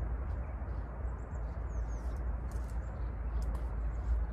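Small birds chirping faintly now and then over a steady low rumble, with a few faint clicks.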